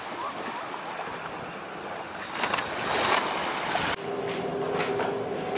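Small waves washing onto a sandy beach with wind on the microphone and a few splashes. About four seconds in it cuts suddenly to a quiet room with a steady low hum and a few light clicks.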